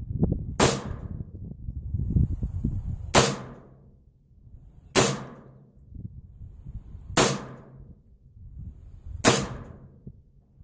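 Five .22 Long Rifle gunshots from Blazer 40-grain ammunition, fired at an even pace about two seconds apart, each a sharp crack with a short tail.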